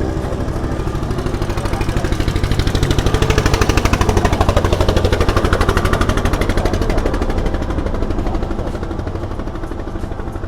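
Kawasaki Z900 inline-four motorcycle with an aftermarket exhaust running with a rapid, even exhaust pulse, swelling to its loudest about four seconds in and then fading.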